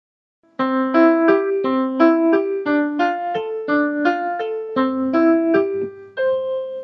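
A short, bright keyboard tune of quick struck notes, about three a second, ending on a held note that fades away.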